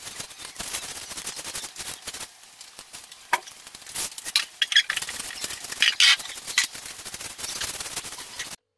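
Small paintbrush scratching and dabbing against the plastic and foil of a model boat, a dense run of dry brushy clicks, with a few sharper crinkles and knocks as the boat is turned by hand. The sound cuts off suddenly near the end.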